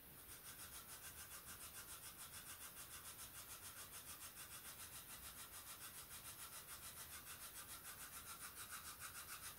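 Faint hiss pulsing evenly about six times a second, typical of a handheld spirit box sweeping through radio static.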